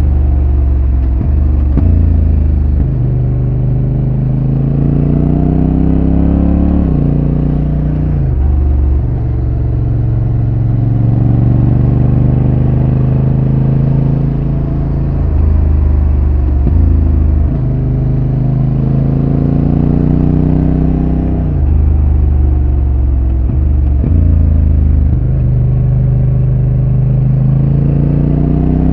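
2022 Honda NT1100's 1084 cc parallel-twin engine through its stock exhaust, heard from the rider's seat under way. The revs climb and then drop sharply several times as the bike accelerates and changes gear.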